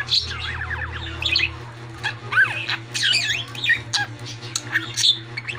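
Budgerigar chattering: a fast, continuous run of chirps, squawks and rising-and-falling whistled notes, the mumbling warble of a budgie mimicking words it has learned.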